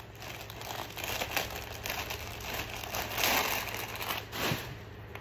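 Crinkling and rustling as pajama sets are handled, in several short bursts.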